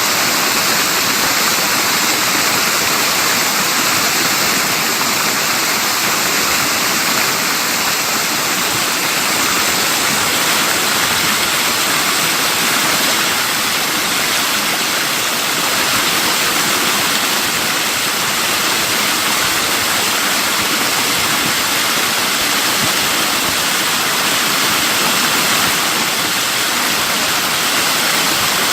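Waterfall: a steady, loud rush of falling water, unchanging throughout.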